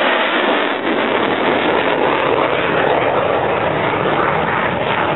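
Engine noise of a fighter jet flying past, loud and steady throughout.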